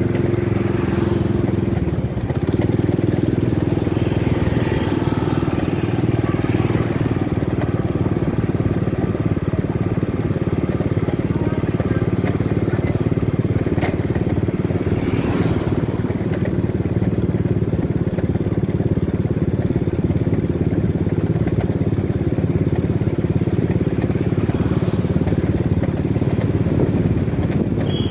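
Motorcycle riding at a steady speed: the engine running under a steady rumble of wind on the microphone.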